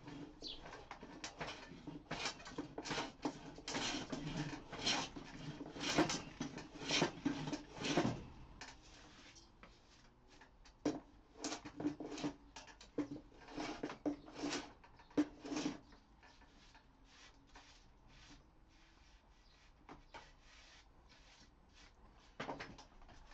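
Hand plane shaving a reclaimed pallet-wood workbench top, a short rasping stroke about once or twice a second. The strokes come thick for the first eight seconds, then thin out and mostly stop after about sixteen seconds.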